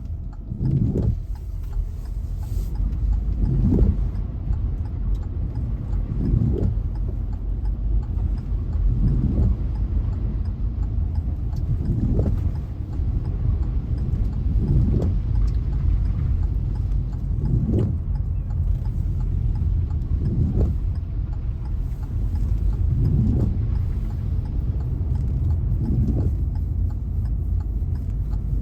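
Car driving, a steady low rumble with a short regular beat about every three seconds.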